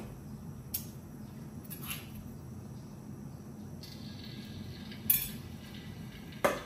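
A metal spoon clinking and scraping against a stone mortar: a few sharp clinks, the loudest about five seconds in, with a short scratchy scrape just before it, over a steady low hum.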